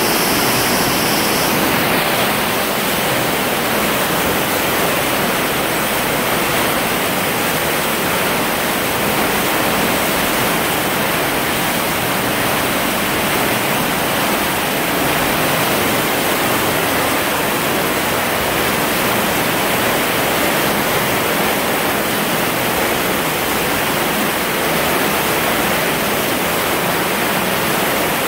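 Water rushing steadily down an enclosed tube water slide, an even, full hiss of flowing water.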